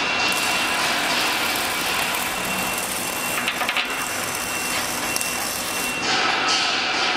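Steady workshop machine noise, a continuous hiss-like rush with a thin high whine running through it, typical of a power tool at work; it changes character about six seconds in.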